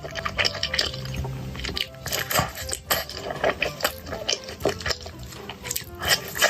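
Close-miked eating sounds: chewing with many quick, irregular mouth clicks and smacks, over background music.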